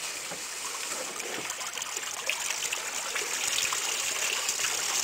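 Water from a pump's hose pouring into a plastic barrel, a steady splashing rush that grows slightly louder as the barrel starts to fill, with water beginning to trickle out at its base into the pool.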